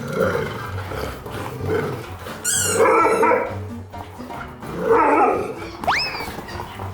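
A dog barking in a few short bursts over jazzy background piano music, with a short rising whistle near the end.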